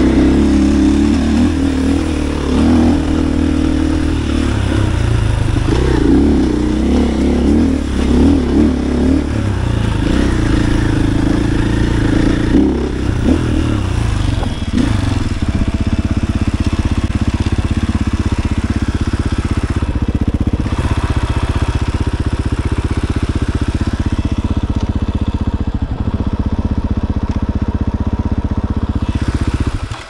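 KTM 500 EXC single-cylinder four-stroke enduro engine, ridden with the throttle opening and closing for about the first half, then running steadily at idle once the bike has stopped at the hilltop.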